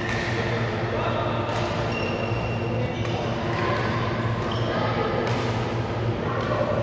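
Badminton rally: sharp racket-on-shuttlecock hits every second or two and short high squeaks of court shoes on the floor, ringing in a large hall, with voices in the background over a steady low hum.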